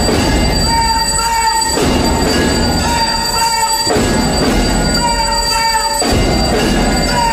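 Temple bells ringing continuously for aarti, a dense metallic clanging with a pattern that repeats about every two seconds.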